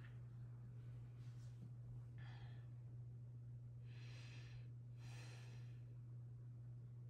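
Near silence over a steady low hum, with a woman breathing out softly twice: briefly about two seconds in, then a longer sigh from about four seconds.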